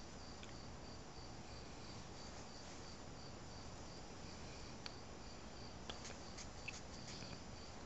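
Quiet room hiss with a faint, high chirp pulsing evenly about three times a second, and a few soft clicks in the second half.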